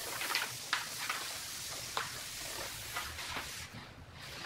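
Large sheet of plastic paint protection film being unrolled and laid over a car hood: faint rustling with scattered light crackles of the film.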